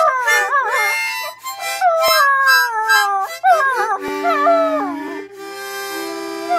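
Shetland sheepdog puppy howling along to music: long, wavering howls that slide down in pitch, over held notes of the accompanying music. The howling stops about five seconds in, and the held notes carry on.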